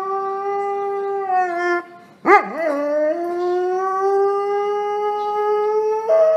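A dog howling in two long howls. The first breaks off about two seconds in. The second starts with a quick waver, holds a steady note that slowly rises, and jumps to a higher pitch near the end.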